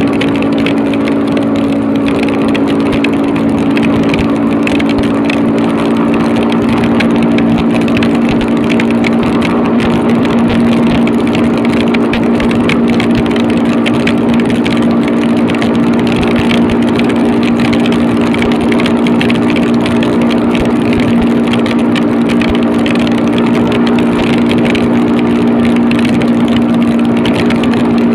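Motorcycle engine running at a steady cruising speed, its even drone holding pitch, over a constant hiss of wind and rain.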